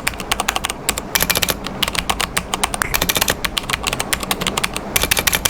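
Fast typing on a mechanical keyboard with Cherry MX Red linear switches: a dense run of quick keystroke clacks with brief pauses.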